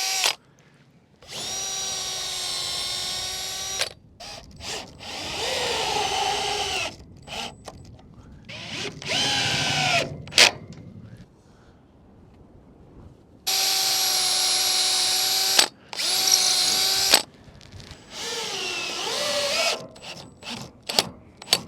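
A power drill running in about six separate bursts of one to three seconds, its whine sagging and rising in pitch under load, as a deck railing panel is drilled and screwed into place.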